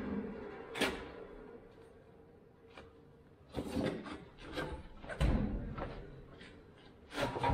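A few scattered metal clunks and clanks under a truck as the transmission jack and hand tools are handled, with quiet stretches between them and a louder clatter near the end.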